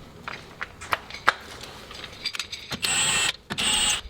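Light metallic clinks of parts being handled, then a cordless Milwaukee impact wrench run in two short bursts with a high whine, about three seconds in, spinning the nuts of a wheel spacer onto the hub.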